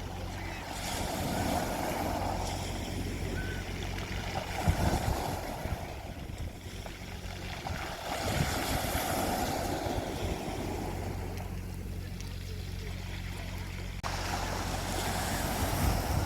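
Sea waves washing onto a beach, the surf swelling and falling back every few seconds. A steady low motor hum runs underneath, with a few low gusts of wind on the microphone.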